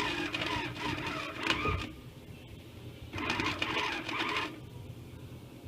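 Small 90-amp flux-core wire welder's arc crackling and buzzing in two runs: one stops about two seconds in, and after a short pause another runs for about a second and a half.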